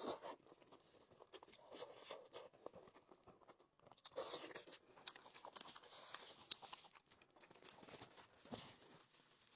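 Faint, intermittent sounds of someone chewing and biting into crispy chicken: scattered small crunches and mouth clicks, a little louder about four seconds in.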